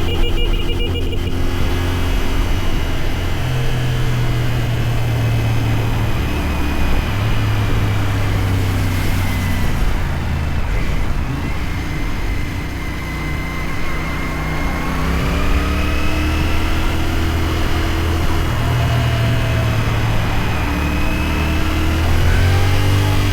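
CFMoto 450SR motorcycle's parallel-twin engine out on a ride. Its pitch climbs and drops several times as the rider accelerates and changes gear, and it eases off briefly about halfway through.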